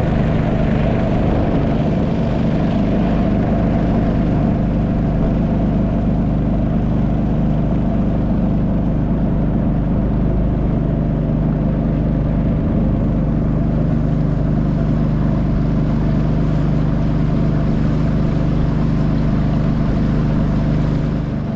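River boat's engine running steadily: a constant low drone that holds one pitch throughout.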